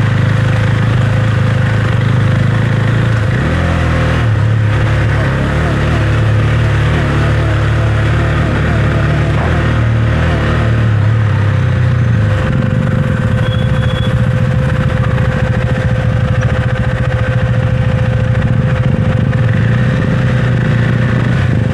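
Husqvarna Svartpilen 401's single-cylinder engine running steadily under way, its note shifting about three to four seconds in and again around twelve seconds in. A steady whine runs alongside it.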